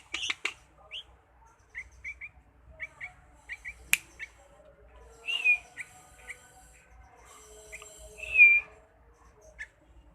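Pet songbird chirping in short, high notes, with two louder falling calls about five and eight seconds in. A single sharp click about four seconds in.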